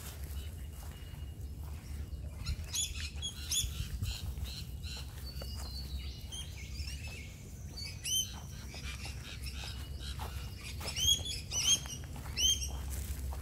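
Small birds chirping: short, curved, repeated notes coming in clusters, loudest near the end, over a steady low rumble.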